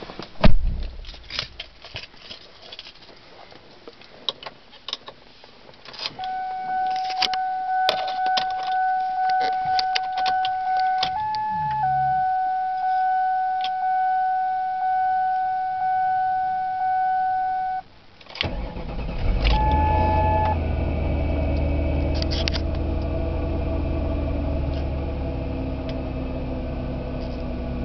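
A few clicks and rattles, then a dashboard warning chime dinging about once a second for some twelve seconds. About eighteen seconds in, the chime stops, and the 2000 Mercury Sable's 3.0 L Vulcan V6 cranks briefly and catches on a cold start at about 5°F. It then runs at a fast cold idle that slowly settles lower.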